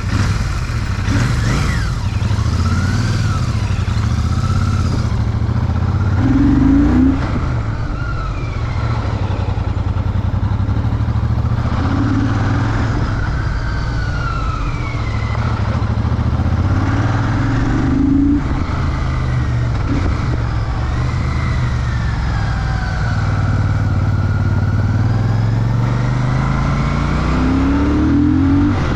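Royal Enfield Shotgun 650's 648 cc parallel-twin engine with 270-degree crank under way on a ride, its note rising and dropping back several times as the rider accelerates.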